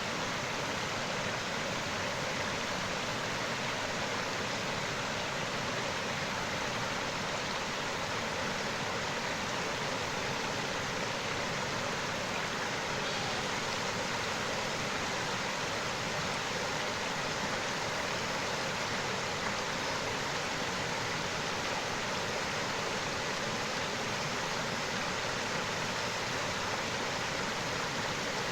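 Running water of a creek, a steady even rush with no breaks or separate splashes.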